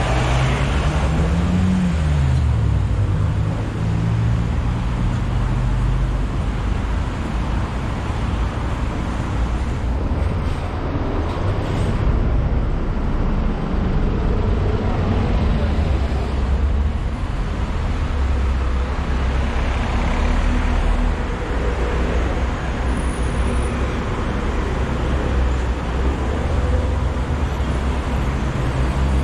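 City road traffic: a steady low rumble of cars and double-decker buses running by. One engine's note rises and then falls about two seconds in.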